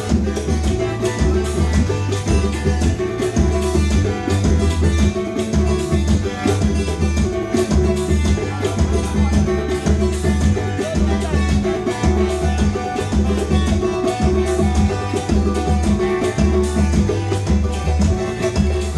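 Instrumental music with a steady beat of drums and bass under pitched instrument notes.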